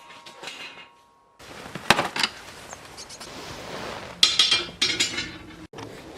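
Blacksmith's steel and tools clanking together, metal on metal, with a short ring after each hit. The hits come in two clusters, one about two seconds in and a longer one about four to five seconds in.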